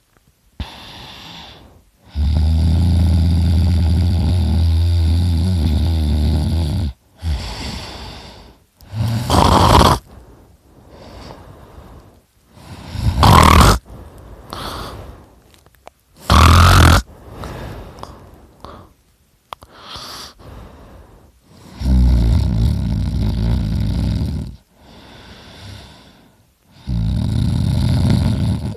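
A man snoring very loudly through an open mouth, his uvula vibrating: long, low, buzzing snores, with three short, harsher bursts of breath in the middle.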